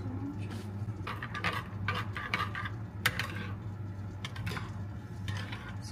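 Spoon stirring and scraping thick peanut sauce in a ceramic bowl, in irregular strokes with clinks against the bowl and one sharp clink about three seconds in, over a steady low hum.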